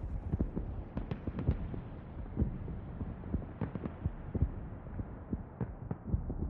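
Irregular sharp pops and thumps, unevenly spaced, over a steady low rumble.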